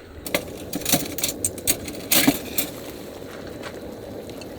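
Light clatter of tableware: a quick run of sharp clicks and clinks over the first two and a half seconds, the loudest a little after two seconds, then quieter.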